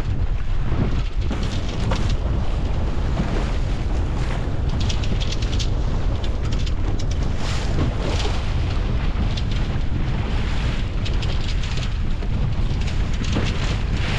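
Strong wind buffeting the microphone in a constant low rumble, with repeated short hissing rushes of water and spray around a small sailing dinghy driving through a fresh breeze.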